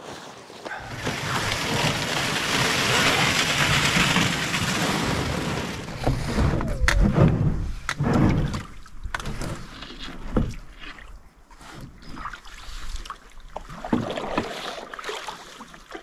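A canoe setting off from shore and being paddled away. A steady rushing noise fills the first few seconds, then come several knocks and splashes of the paddle and hull, growing sparser and quieter.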